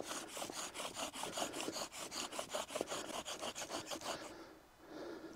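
Bow drill at work: the wooden spindle rasping in the hearth board's notch with each quick stroke of the bow, in a fast even rhythm that stops about four seconds in. The spindle is grinding hot wood powder into the notch, already smoking, to build an ember.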